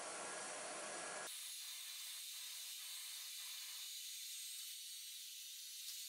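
Faint steady fizzing hiss of an electrolysis bath as gas bubbles rise around a rusty axe head in a plastic bottle of water. About a second in, the lower sound drops out suddenly and only a thin high hiss remains, with a few faint ticks.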